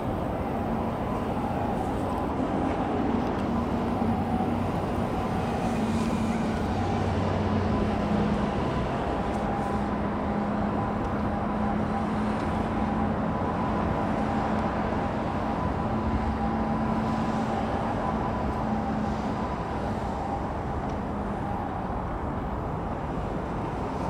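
Steady road traffic noise from the bridge and elevated expressway overhead: a continuous hum with a low engine drone through the middle, mixed with strong wind on the microphone.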